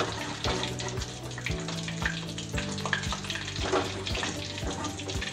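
Hot oil sizzling steadily from deep-frying batter-coated chicken pieces. Under it runs background music with held low notes and a steady beat about twice a second.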